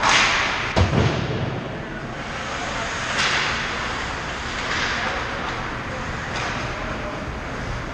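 Ice hockey play close to the net: skate blades scraping and spraying ice in several bursts, with a sharp knock about a second in.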